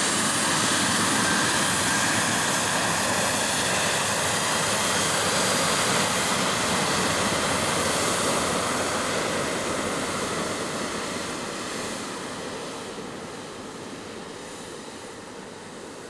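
Boeing 737-700's CFM56-7B jet engines at takeoff thrust as the airliner rolls down the runway: a loud, steady jet noise with a strong high hiss. It fades from about ten seconds in as the plane moves away.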